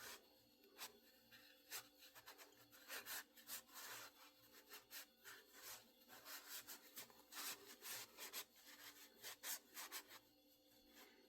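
Faint, irregular hand strokes rubbing and abrading a wooden axe handle, a few strokes a second, as the handle is worked smooth.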